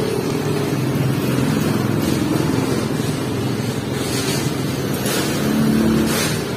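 A motor vehicle engine running steadily, its pitch shifting up and down, with two short hisses in the second half.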